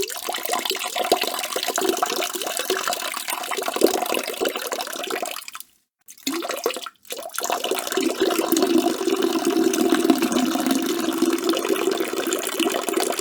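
A man urinating: a steady splashing stream that stops about five and a half seconds in, comes back as a short spurt, then resumes and runs on strongly.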